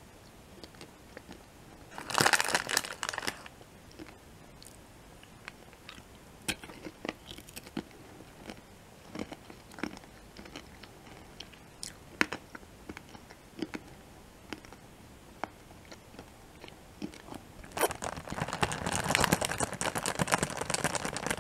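Peanut M&M's crunched and chewed close to the microphone: a loud burst of crunching about two seconds in, then scattered small mouth clicks while chewing. Near the end, the plastic candy bag crinkles steadily as it is handled.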